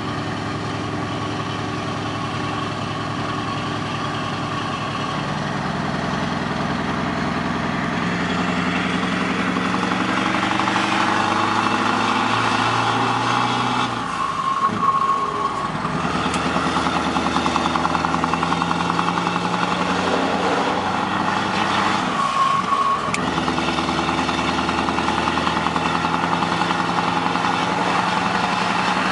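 Scania 164 480's V8 diesel engine heard from inside the cab, pulling under load with its pitch climbing through the gears. It breaks off for a gear change about halfway and again about three quarters of the way through.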